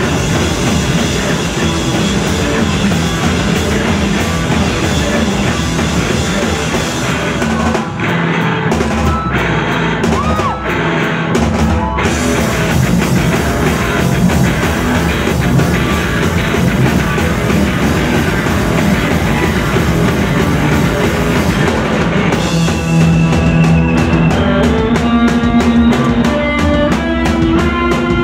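Live instrumental surf rock played by a band on electric guitars, drum kit and keyboard. The high end thins briefly near the middle, and in the last few seconds the drums drop back under held notes.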